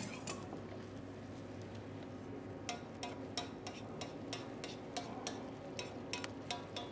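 Risotto being stirred in a pan. From about two and a half seconds in, a utensil gives a run of sharp, irregular clicks and taps against the pan, several a second, over a steady low hum.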